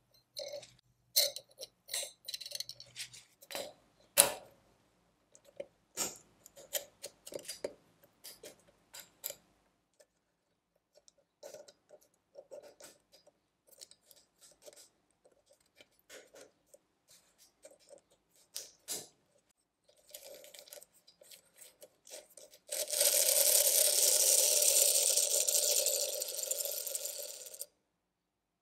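Small metal clicks, taps and scrapes as the steel plates, gear and mainspring of a 1951 Sutcliffe tin toy clockwork motor are fitted together. Near the end the clockwork mechanism spins with a loud, steady whirr for about five seconds and then stops abruptly as its spring runs down.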